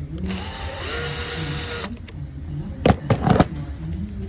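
A power tool runs for under two seconds with a steady whine, starting and stopping abruptly. About a second later come a few sharp knocks.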